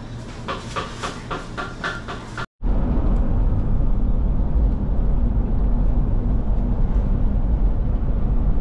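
A quick, even run of taps that cuts off abruptly about two and a half seconds in, followed by the steady low rumble of a car on the move, road and engine noise.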